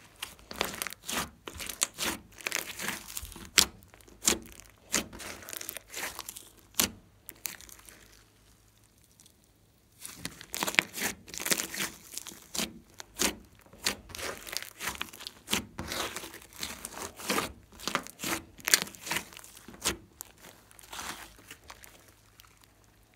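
Hands squeezing, folding and stretching a thick pastel slime mixed with clay and small foam beads, giving irregular runs of sharp clicks and pops. There is a quiet pause of about two seconds about a third of the way in, and another near the end.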